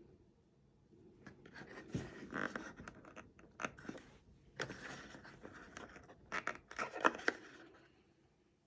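Earbud packaging being handled: irregular rustling and scraping with scattered sharp clicks, dying away near the end.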